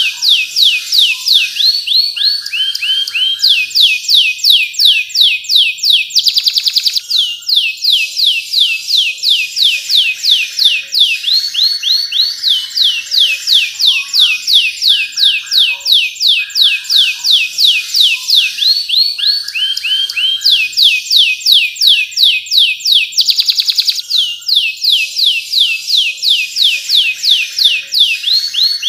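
Domestic canary singing a long, fast song of trills: rapid runs of falling whistled notes, broken twice by a brief harsh rolled note.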